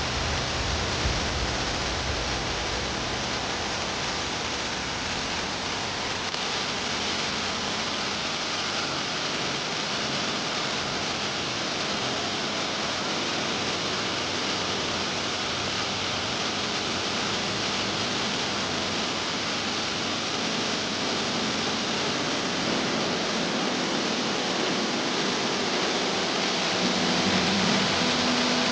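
Steady rush of falling water, an even hiss that holds level throughout and swells slightly near the end.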